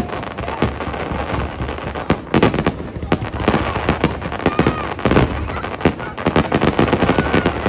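Fireworks display: aerial shells bursting in rapid, overlapping bangs and crackles, many reports a second.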